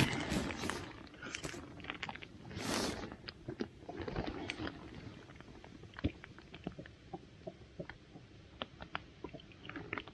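Close handling noises while a deeply swallowed microjig is worked out of a fish: irregular small clicks and taps, with a louder rustle about three seconds in.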